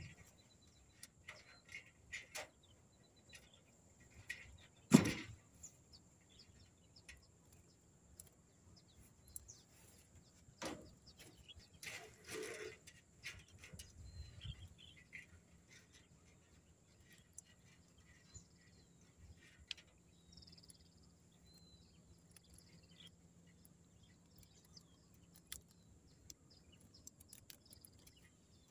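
Outdoor ambience: birds chirping and a steady high-pitched hum under scattered small clicks and handling noises, with one loud sharp knock about five seconds in and a short rustle about twelve seconds in.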